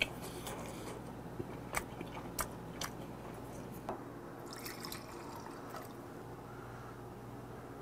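A few light clicks and knocks of a bottle and glassware being handled, then vodka poured from a bottle into a glass.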